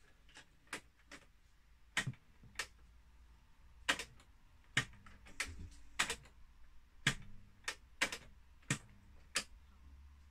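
Repeated sharp clicks of the Philips D8254 radio cassette player's cassette transport keys being pressed, about fifteen at uneven intervals, with a faint low hum briefly after a few of them. The deck is reluctant to rewind.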